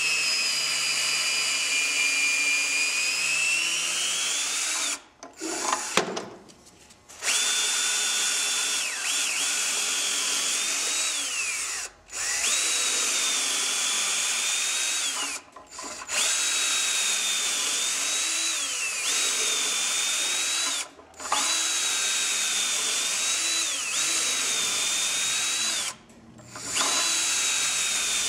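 Cordless drill turning a cutting tool in the servo bore of a Ford 5R55-series transmission case. The motor whine runs in stretches of several seconds, stopping briefly about six times, rising in pitch as it spins up and dropping at each release.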